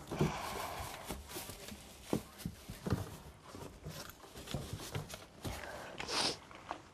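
Rustling and scattered light knocks and clicks of small objects being handled and sorted, with a short hiss about six seconds in.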